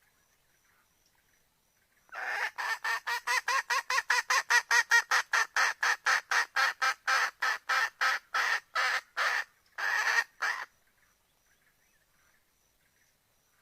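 Junglefowl hen calling to a rooster: a rapid run of clucking notes, about four a second, lasting some eight seconds from about two seconds in, breaking off briefly near the end before one last longer note.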